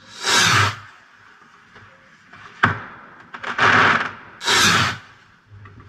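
Fireworks going off: three short bursts of hiss, one right at the start and two close together past the middle, with a single sharp crack in between.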